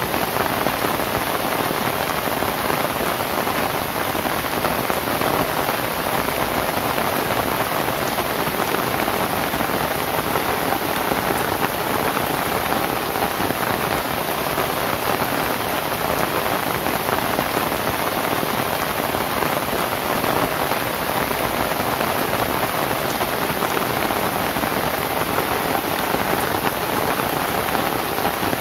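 Steady rain falling on a thatched roof of lontar palm leaves, an even hiss of many drops with no let-up or thunder.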